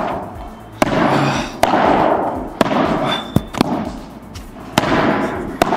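Padel rally: the ball is struck back and forth with padel rackets, a sharp pop about once a second, each with a short echo.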